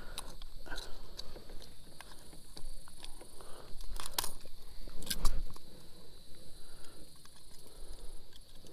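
Metal fishing pliers clicking and scraping against a square-bill crankbait's treble hooks as the lure is worked free from a bass's mouth, with a few sharp clicks and a handling thump about five seconds in.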